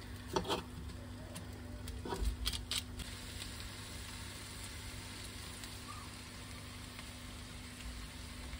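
Chicken thighs and potato wedges sizzling steadily on a baking tray in a hot gas oven. A few sharp clicks and knocks in the first three seconds come from the food being turned on the tray.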